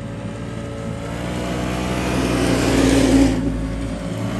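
Snowmobile engines running at speed on a trail, one machine growing louder as it approaches and passes close about three seconds in, with another coming up behind it.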